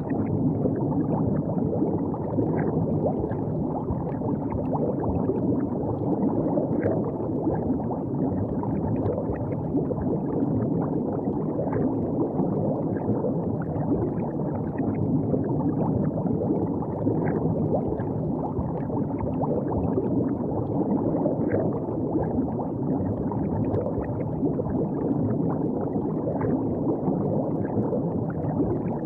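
River water flowing and gurgling steadily at the bank, with small splashes and drips scattered through it.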